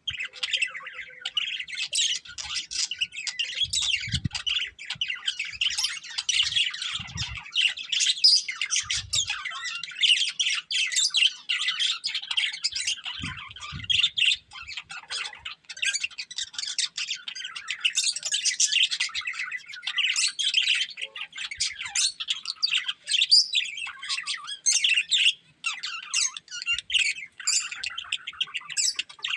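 Budgerigars chattering with continuous rapid chirps and squawks, with a few faint low thumps.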